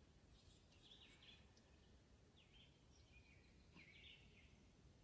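Near silence with a faint songbird singing: short chirping phrases repeated every second or so over a low outdoor background hush.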